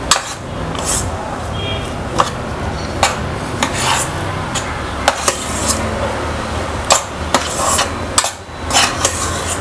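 Metal spoon stirring and scraping thick chocolate and peanut butter fudge mixture around a stainless steel pan, with irregular clinks and scrapes of the spoon against the pan over a steady low background noise.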